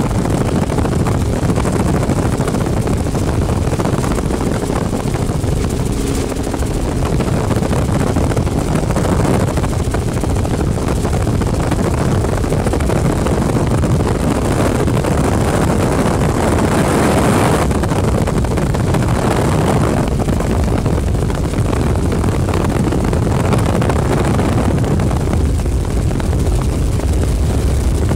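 Helicopter engine and rotor noise heard from inside the cabin in flight: a loud, steady drone, with a brief rise in hiss about two-thirds through.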